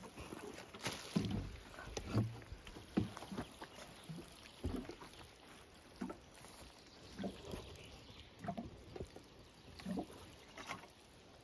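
Water from a heavy watering can splashing and sloshing onto a garden bed in uneven spurts.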